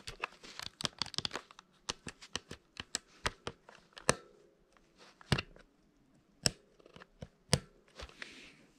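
Prinzatronic calculator keys being pressed, a run of sharp clicks. They come quickly for the first second and a half, then as single presses about half a second to a second apart.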